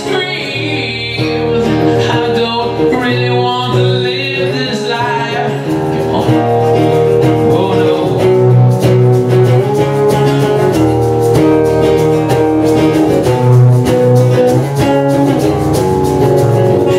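Live acoustic band music: two acoustic guitars strumming with a voice singing, the strumming getting fuller about six seconds in.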